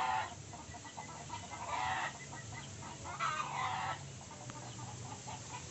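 Chickens clucking in three short bursts about a second and a half apart, over a steady low hum.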